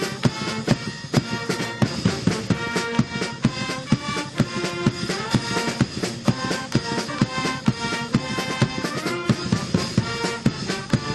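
Brass band of a university cheering club playing: trumpets, saxophones and sousaphone over snare and bass drum, with a steady beat of drum strikes under the melody.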